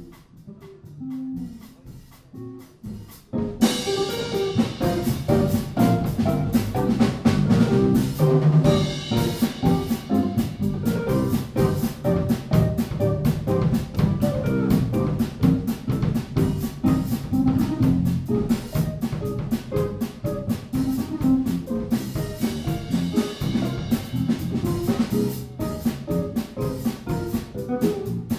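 Live jazz trio of electric bass, drum kit and hollow-body electric guitar. It starts quietly with a few low notes, then about three and a half seconds in the drums and full band come in and play on with busy drum and cymbal strokes.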